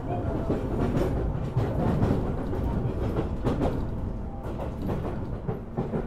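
Tobu Railway electric commuter train running, heard from inside the car: a steady rumble of wheels on rail, with irregular clacks as the wheels pass over rail joints and points.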